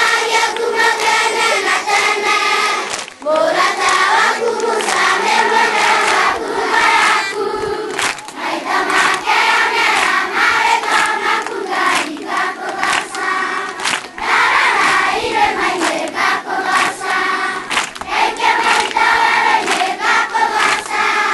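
A choir singing together, many voices, with short gaps between phrases.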